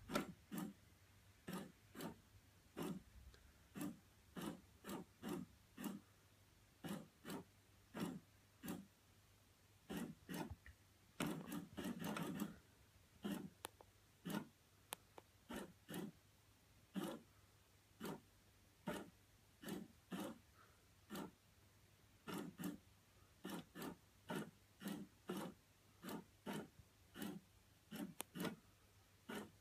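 Motor of a PetSafe FroliCat Cheese cat toy running in short rasping bursts, two or three a second, as it pushes the toy mouse in and out of the holes. There is one longer run about halfway through.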